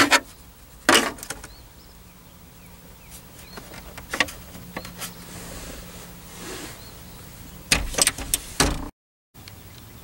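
Scattered sharp clicks and light knocks from plastic trim and tools being handled at a truck's opened steering column. There is one loud click about a second in, a few faint ones in the middle, and a quick run of clicks near the end that cuts off abruptly.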